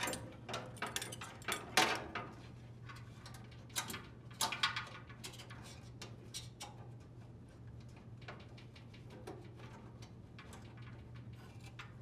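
Wire harness being handled and pressed into plastic retaining clips on a dryer's sheet-metal base: scattered light clicks and rustles in the first couple of seconds and again around the middle, over a faint steady low hum.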